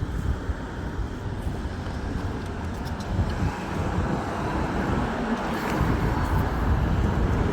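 Street traffic: cars passing, a steady rumble of engines and tyres that swells a little toward the end.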